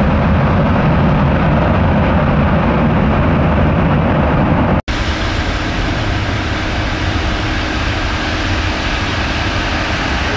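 Airbus A330-243 jet airliner's Rolls-Royce Trent 700 turbofan engines running as a loud, steady rumble on the runway. The sound cuts out for an instant about five seconds in, then carries on.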